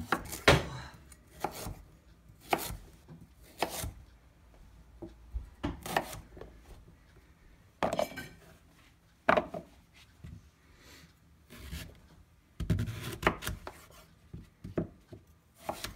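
Chef's knife chopping carrots and celeriac on a wooden cutting board: separate knocks of the blade on the board about a second apart, a few scattered ones, then a quicker run of cuts later on.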